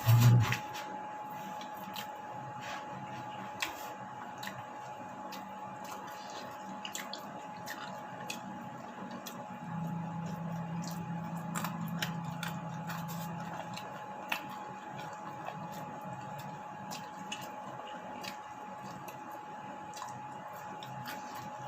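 Close-up eating sounds: wet chewing and mouth smacking with scattered small clicks, opening with one loud thump. A steady high thin tone runs underneath, and a low hum sounds for a few seconds in the middle.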